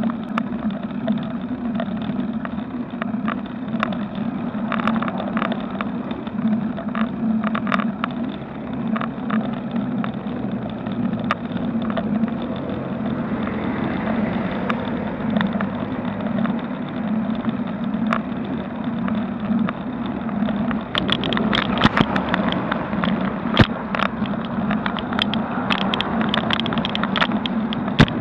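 Bicycle ride heard through a bike-mounted action camera: a steady hum with road and wind noise, and light clicks and rattles from the bike that come thicker over the last seven seconds.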